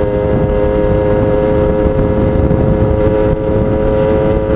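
Suzuki Tornado GS two-stroke motorcycle engine held at high revs at full throttle, one steady engine note, with wind rumble on the microphone.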